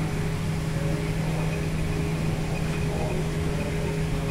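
Steady machine hum with a constant low tone and a fainter higher tone over an even noise.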